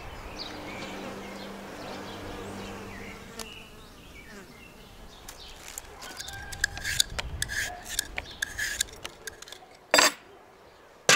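A bee buzzing steadily for the first three seconds or so. Then fruit and vegetables being handled, with short knocks and scrapes and one loud knock about ten seconds in.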